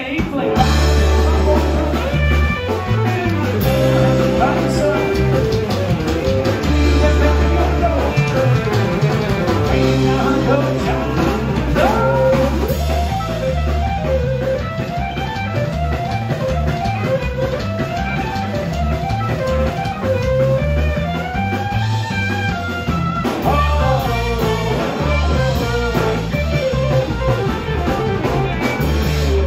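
Live band playing an instrumental passage: an electric guitar plays fast, repeating lead runs over an upright bass and a drum kit.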